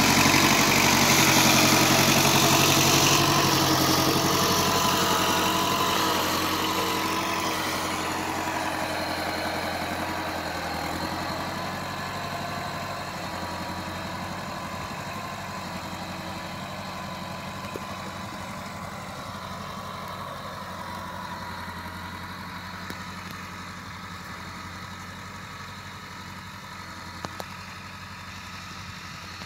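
Diesel engine of a VST Shakti MT 270 compact tractor running steadily as it pulls a ridging implement through the soil, loud at first and fading gradually as the tractor moves away.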